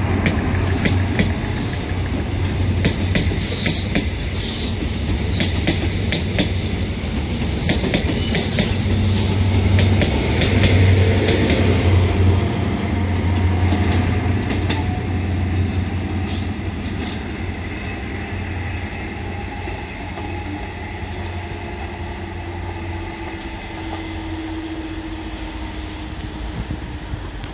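High Speed Train with Class 43 diesel power cars running past and away, a steady engine drone with the wheels clicking over rail joints and pointwork. It is loudest about ten to twelve seconds in as the rear power car passes, then fades as the train draws off into the distance.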